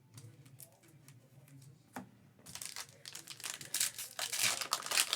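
Foil wrapper of a Panini Prizm trading-card pack crinkling and tearing as it is opened. A few light clicks of handling come first; about two and a half seconds in, the crinkling turns dense and grows louder.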